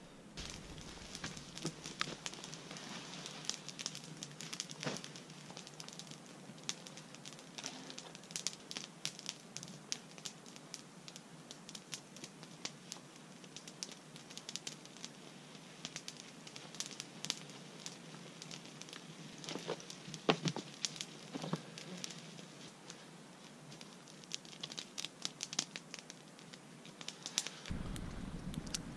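Wood campfire crackling, with frequent small pops and a few louder snaps.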